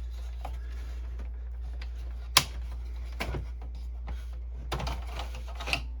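Scattered sharp clicks and taps from inkjet cartridges and refill-kit parts being handled, the loudest a little over two seconds in, over a steady low hum.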